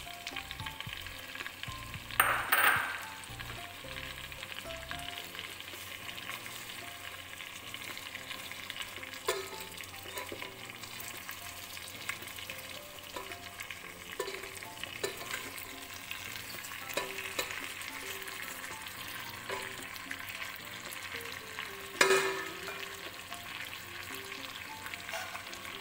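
Chicken pieces and sliced onion frying in oil in a nonstick pot: a steady sizzle while a spoon stirs them through. Two louder knocks come about two seconds in and again near the end.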